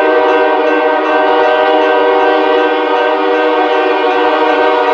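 Multi-chime air horn of the lead locomotive, CMQ GP38-3M 3812, sounding one long, loud, steady blast, several notes held together as a chord.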